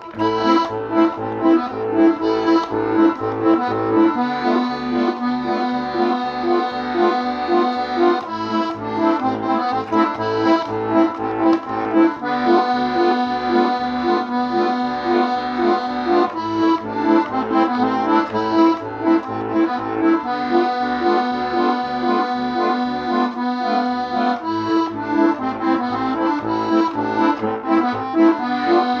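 Accordion playing an instrumental introduction: a sustained, reedy melody and chords over a regularly pulsing bass accompaniment.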